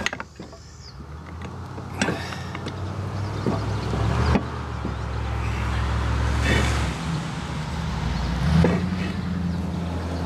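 Metal clinks and knocks as the halves of an outboard lower-unit gearcase and its gears are handled and pulled apart, a few sharp hits spread through. Under them runs a steady low drone.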